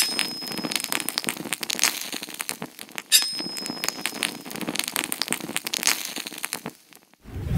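Crackling, sparking electric sound effect: dense irregular snaps and crackles, with a thin high tone ringing briefly at the start and again about three seconds in. The crackling stops shortly before the end, where a low swell begins.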